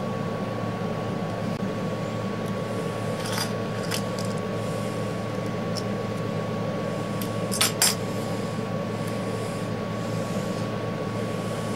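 Small metal clicks and clinks of a Browning Buck Mark pistol's extractor being worked in the slide with a precision screwdriver and tweezers while the spring-loaded plunger is pushed back and a Volquartsen extractor is fitted, over a steady hum. There are a few light clicks about three and a half to four seconds in, and a sharper pair of clicks just before eight seconds in.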